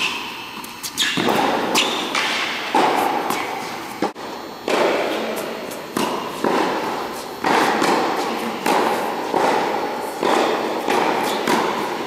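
Tennis rally: a ball struck by racket strings and bouncing on a hard court, a sharp pop about every second. Each hit rings on in a long echo through the indoor tennis hall.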